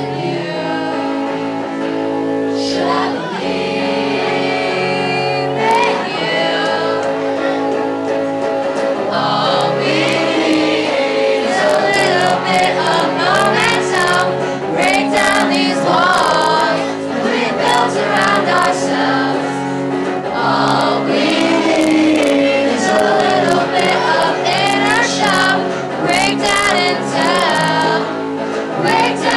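Live band performance of a pop-rock song: singing over electric guitar and sustained accompaniment, recorded from within the audience.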